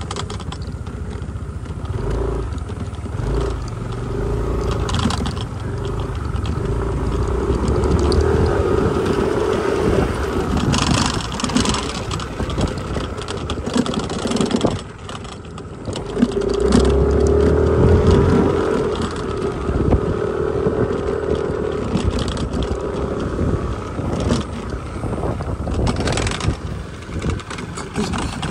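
Motor scooter riding along a rough dirt road: the engine's steady drone mixed with low wind and tyre rumble. The engine eases off briefly about 15 seconds in, then picks up again.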